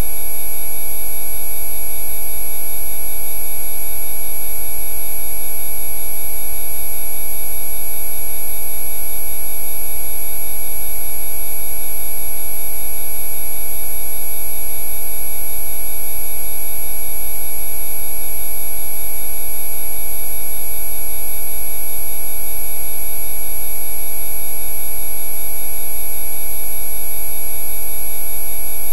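Rife frequency tones: many steady electronic sine tones sound together, from low to very high, over a low hum. They are loud and unchanging throughout.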